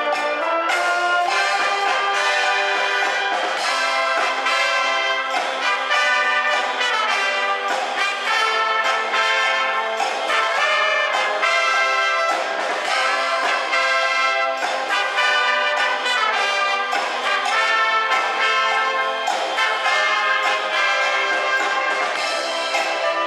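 A concert band playing live, trumpets and other brass over clarinets and saxophones, in a busy passage of many quick notes at a steady loud level.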